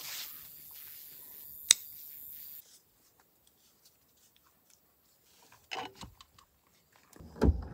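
Hunting gear being handled. A harness strap buckle gives one sharp click about two seconds in. A few seconds later there is a brief rattle as the bow is lifted out of the truck, and a couple of dull thumps near the end.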